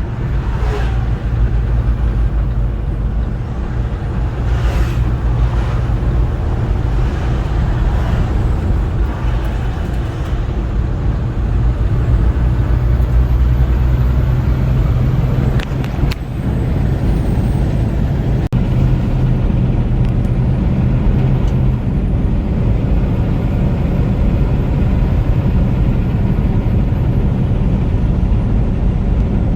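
Steady engine drone and road noise of a vehicle driving at a constant speed on the highway, heard from inside the cab.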